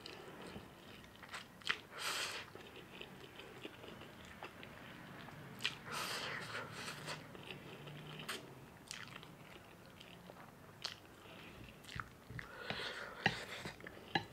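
A person eating ramen noodles close to the microphone: three long slurps, wet chewing and small sharp clicks between them.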